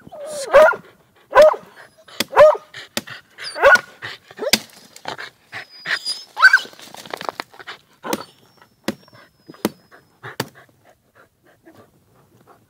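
Hunting dog barking in an agouti's burrow: about six loud barks in the first seven seconds, then fainter scattered clicks and knocks.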